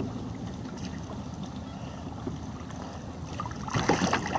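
Steady wind rumble on the microphone, then near the end a hooked catfish thrashing and splashing at the surface beside the kayak as it is hand-lined in.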